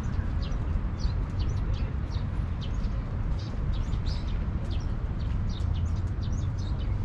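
Small birds chirping: many short, quick calls, often overlapping, throughout, over a steady low rumble.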